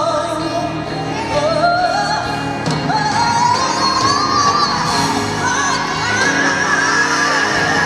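Gospel choir singing with instrumental backing; a lead voice climbs in pitch and holds a high note near the end.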